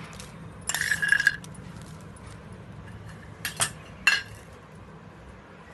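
Steel spoon clinking against a stainless steel bowl: a run of ringing clinks about a second in, then a few sharp clinks around three and a half to four seconds.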